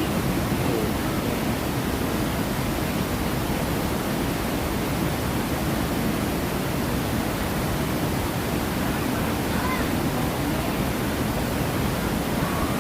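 Steady rush of falling and churning water from the artificial waterfalls and rapids of a river-rafting ride. Faint distant voices come through about ten seconds in and near the end.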